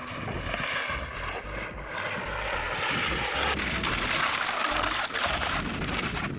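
Wind blowing on the microphone, a steady hiss over a low rumble that builds louder through the middle.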